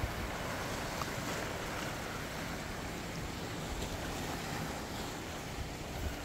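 Calm sea washing gently against shoreline rocks, a steady hiss of water, with wind buffeting the microphone in a low rumble.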